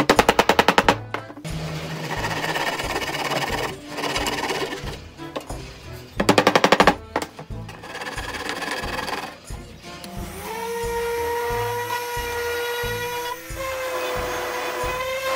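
Background music with a steady beat, with two short bursts of rapid rattling; from about ten seconds in, an electric random orbital sander runs with a steady hum.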